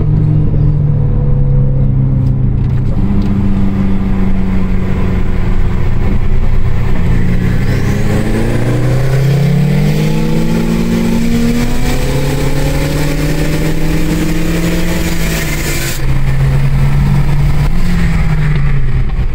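Car engine running while driving, its pitch holding steady and then rising as the car accelerates. Its loudness jumps up near the end.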